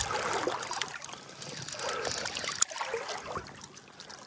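River water sloshing and lapping, with a few light clicks and one sharper click a little past halfway, fading somewhat toward the end.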